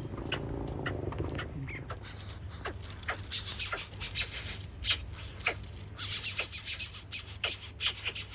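Birds calling in rapid runs of shrill, high-pitched notes and clicks, in two louder spells; a lower, drawn-out pitched sound fades out in the first second and a half.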